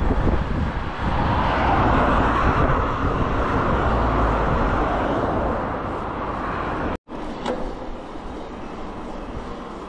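A car passing on the road, its tyre noise swelling about a second in and slowly fading, over wind rumbling on the microphone of a moving bicycle. The sound cuts out for an instant about seven seconds in, then the quieter ride noise goes on.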